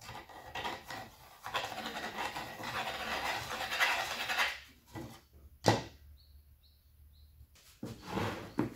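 Wood rubbing and scraping against wood for about three seconds, followed by a sharp knock and a few lighter knocks as pieces are handled.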